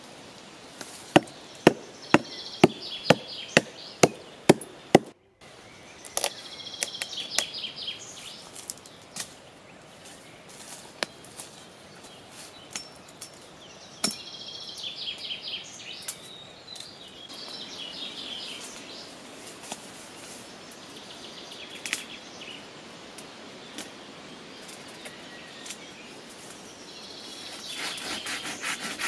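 A hatchet chopping into a tree trunk: a quick run of about eight sharp blows, about half a second apart, that stops after about five seconds, then scattered lighter knocks. Birds sing on and off throughout.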